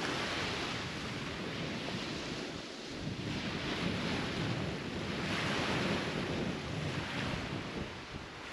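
Strong wind blowing across the microphone: a steady rushing noise that swells and eases in gusts every second or two.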